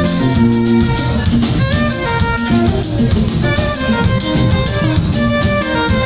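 Live band playing: a violin carries a stepping melody over electric guitar, bass guitar and drum kit.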